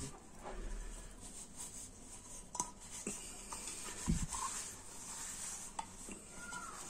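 Cloth rubbing and scrubbing inside a copper bowl darkened with oxide, being polished clean, with small scattered knocks as the bowl is handled and a low bump about four seconds in.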